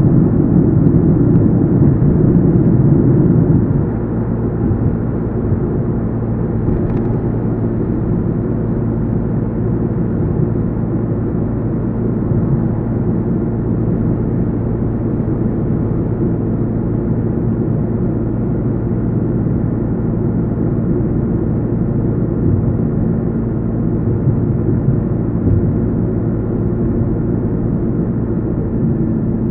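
A car driving on a road: a steady low rumble of tyres and engine, louder for the first few seconds and then easing, with a faint steady hum underneath.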